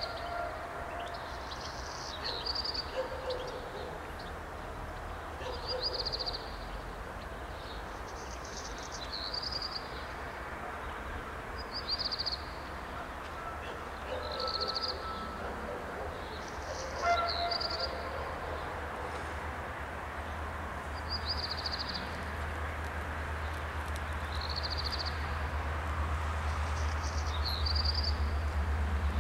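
A small bird sings a short high phrase every two to three seconds. A brief horn note sounds about seventeen seconds in. Through the second half the low rumble of an approaching diesel locomotive grows steadily louder.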